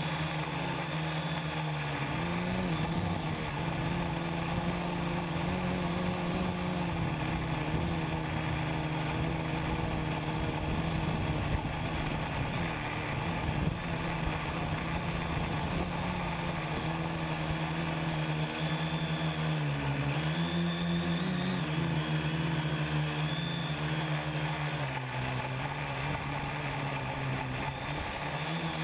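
Quadcopter motors and propellers buzzing steadily, heard from the camera on the craft itself. The pitch wavers as the throttle changes, dipping and rising most clearly about twenty seconds in.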